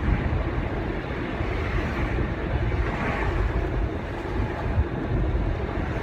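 Steady road and engine rumble heard inside a moving car's cabin, with some wind noise.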